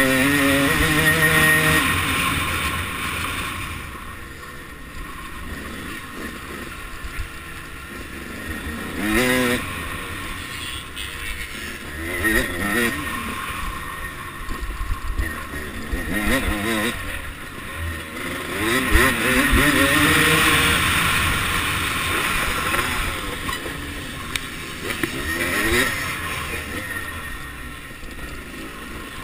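1989 Suzuki RM250 two-stroke single-cylinder motocross engine, heard from a camera on the bike, revving up and backing off again and again as it is ridden hard round a dirt track. Its pitch rises sharply each time it pulls, loudest at the start and again about two-thirds of the way through.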